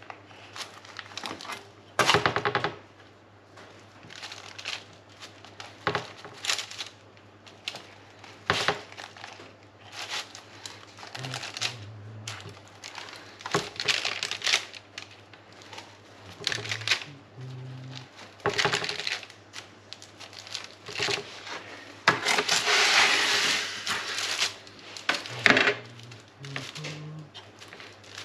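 Metal bench scraper chopping through a thin sheet of baked marzipan biscuit on baking paper over a metal tray: irregular crisp cuts, scrapes and taps, with some paper crinkling. A low steady hum runs underneath.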